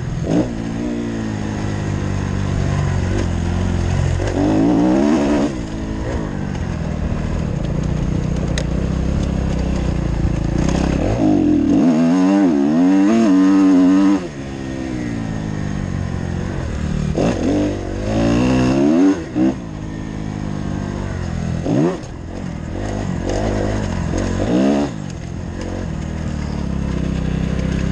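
2015 Kawasaki KX250F four-stroke single-cylinder motocross engine, revving up and easing off again and again as the bike is ridden around a dirt track. About halfway through the revs climb high and hold for a couple of seconds, then fall away sharply.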